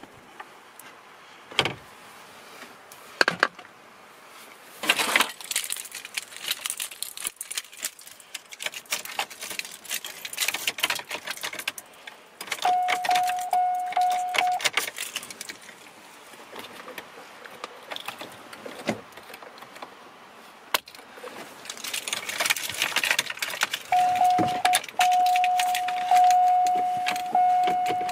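Plastic and metal clicks and rattles from handling the column gear shift lever and its trim on a 2007–13 Chevrolet Silverado. A steady electronic chime tone from the truck sounds twice: for about two seconds halfway through, and again over the last few seconds.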